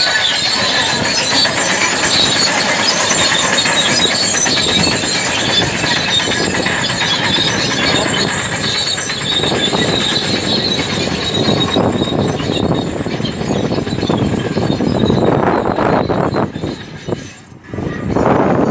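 Caterpillar crawler bulldozer working: its diesel engine runs under load while the steel tracks clank and squeal with a steady high-pitched tone. Near the end the noise drops away sharply for a moment, then a heavy engine is loud again.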